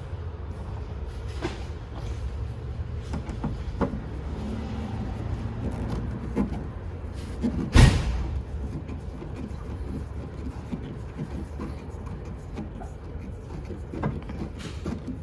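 Hand work on a plastic car bumper cover as it is screwed into place: scattered light clicks and rubs, with one sharp, loud knock about eight seconds in, over a low steady rumble.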